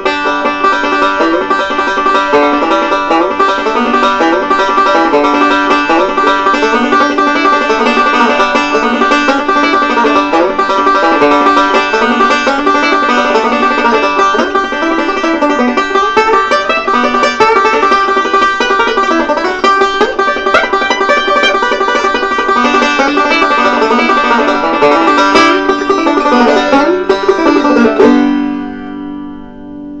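1965 Gibson RB-500 five-string resonator banjo being picked in a continuous stream of rolling notes. Near the end the picking stops and the last notes ring out and fade.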